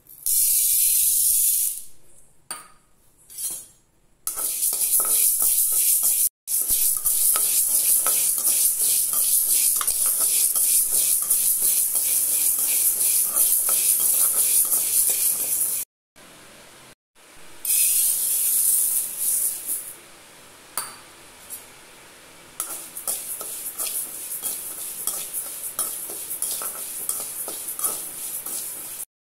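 Dry lentils and then rice being stirred and scraped around a dry aluminium kadai with a metal spatula, a steady rattling hiss full of small scraping clicks. Lentils are poured into the empty pan at the start, and the sound drops out briefly a few times.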